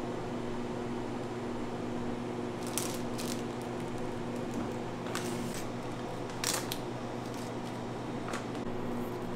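Steady machine hum in a kitchen, with a handful of short, light clicks and scrapes: a pair about three seconds in, more around five and six and a half seconds, and one near eight seconds.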